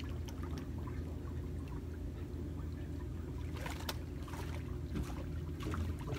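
Water splashing and sloshing as a large animal surfaces and moves at the river's surface, with the sharpest splashes about three and a half seconds in and again near the end, over a steady low rumble.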